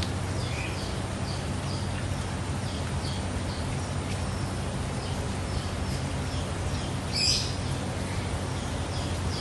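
A bird chirping in short, high, repeated notes, with one louder call about seven seconds in, over the steady hum and hiss of a pond aerator.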